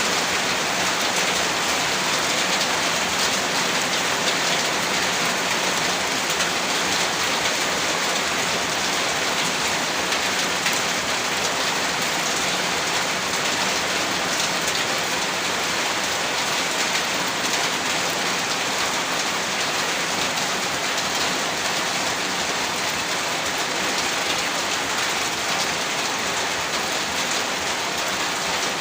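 Heavy rain falling and pattering on a surface, steady and unbroken.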